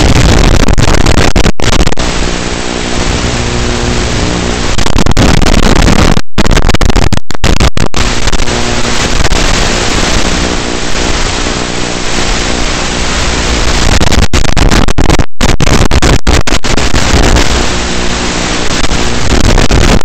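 Onboard audio of a Turbo Timber UMX model plane in flight: a loud, steady hiss and wind rush, with the buzz of its electric motor and propeller showing through more strongly at times. The sound cuts out for a split second several times.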